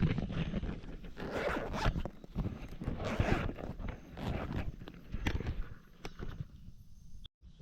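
A zipper being pulled in several long strokes, each a rasping swish of about a second.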